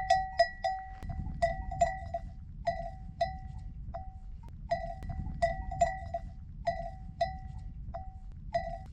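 A single livestock bell clanking irregularly, as from a grazing animal, with several strikes a second in bunches and short gaps between. Each strike rings briefly at the same pitch, over a low rumble.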